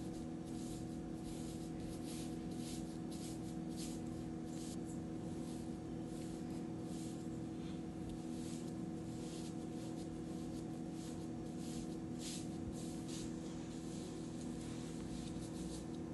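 Wide flat paintbrush swishing across paper in repeated strokes, about one or two a second, spreading acrylic paint, over a steady low hum.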